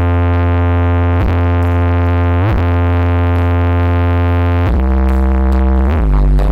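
Electronic synth music blasting from a towering carnival speaker-stack truck: long held deep bass notes, broken by quick rising pitch sweeps about a second in and again about two and a half seconds in, with the note changing twice in the second half.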